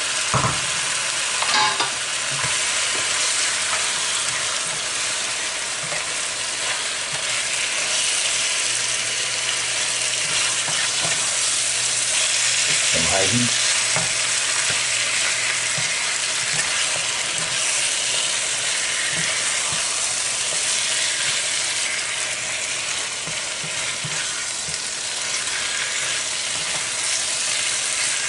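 Seasoned chicken pieces sizzling steadily as they fry in a frying pan, stirred and scraped with a spoon. A few short knocks come near the start.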